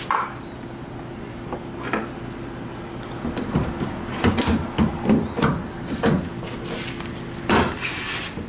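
Irregular clicks, knocks and rustles of hands handling wiring and small parts, busiest in the middle, with a short scratchy rasp near the end. A faint steady hum runs underneath.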